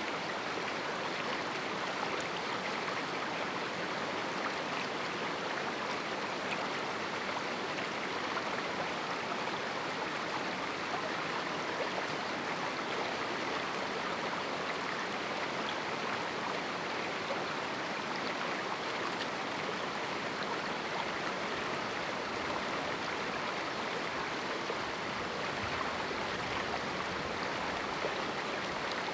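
A small river flowing through a rocky canyon, a steady rushing of water over stones.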